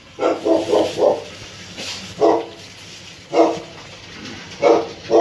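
Dog barking: a quick run of four barks, then single barks about once a second.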